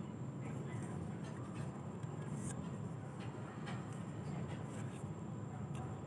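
Light clicks and scrapes of a small humidifier's plastic shell and circuit board being handled and fitted together, a few scattered clicks over a steady low background hum.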